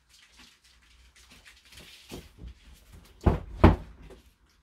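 Two heavy thumps about a third of a second apart, after a stretch of faint clicks and rustling.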